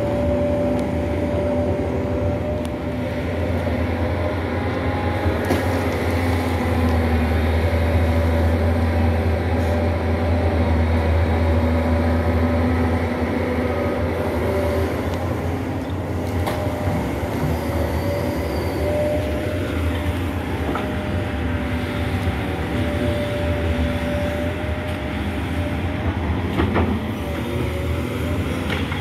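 Doosan crawler excavator's diesel engine running under load as it digs and swings, a steady low drone with a thin whine above it, growing somewhat louder for several seconds in the middle.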